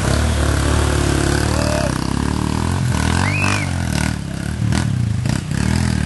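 A vehicle engine revving up and down while water rushes and splashes, with a few sharp knocks in the second half.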